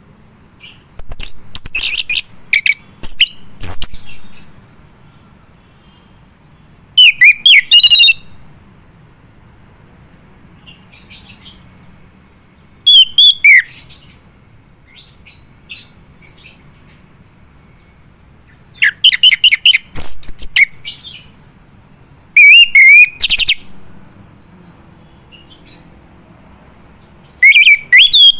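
Male chestnut-capped thrush (anis kembang) singing: loud phrases of rapid, varied high notes, each about a second long, repeated every few seconds with pauses between.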